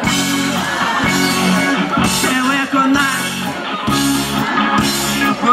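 Live rock band playing through the stage sound system: electric guitars, keyboards and drums over a steady beat.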